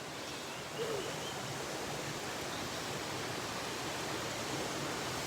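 Waterfall rushing as a steady, even wash of falling water, growing slightly louder about a second in.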